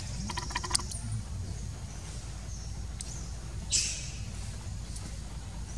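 Forest ambience: a quick run of clicky chirps within the first second and a brief hiss like a rustle just before four seconds, over a steady low rumble.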